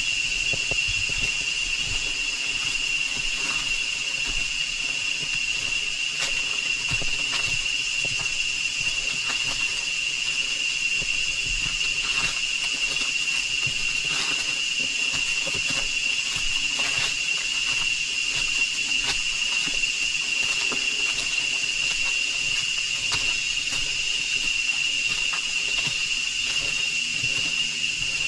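Rainforest insects droning: a steady high-pitched whine over a fainter hiss.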